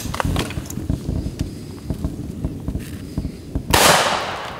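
A single shotgun shot about three-quarters of the way through, its report trailing off in an echo over about a second. Before it, scattered light clicks and rustling.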